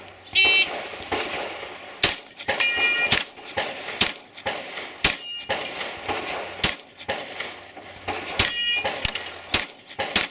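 Gunshots at a shooting match, about a dozen spread irregularly over several seconds, several followed by the ringing of struck steel targets.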